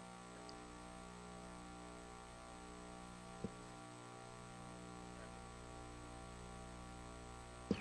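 Steady electrical mains hum on the microphone feed, with one short click about three and a half seconds in.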